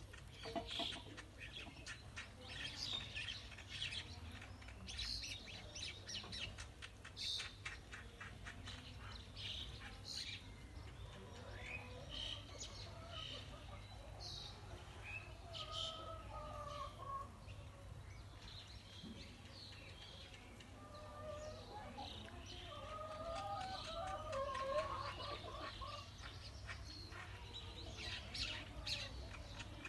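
Several pet birds chirping and calling. Short, high chirps come thick and fast at first, and lower, drawn-out calls join in during the second half. A steady low hum runs underneath.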